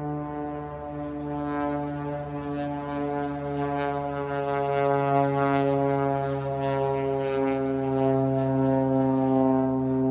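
Cessna 185 Skywagon's air-cooled flat-six piston engine and propeller droning steadily as the plane flies over, growing louder as it approaches, with the pitch dropping slightly in the second half as it passes.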